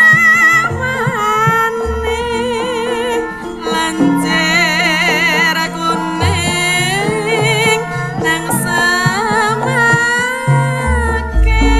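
A sinden, a female Javanese vocalist, singing through a microphone with a heavy, wavering vibrato over gamelan accompaniment, with steady melodic tones and low held notes underneath.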